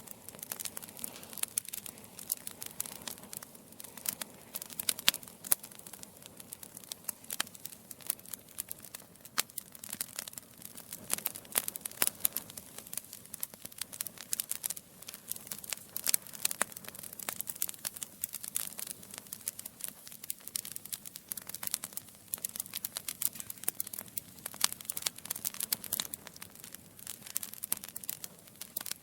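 Wood fire burning in a fireplace, logs crackling with many sharp irregular pops and snaps.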